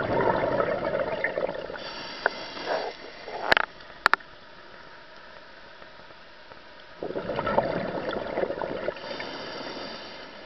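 Scuba diver's exhaled breath bubbling out of the regulator underwater, twice, about seven seconds apart, each burst lasting two to three seconds. A few sharp clicks come a little over three seconds in.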